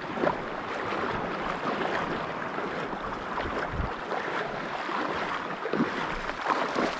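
Shallow seawater sloshing and lapping around the reef flat, steady throughout, with wind buffeting the microphone.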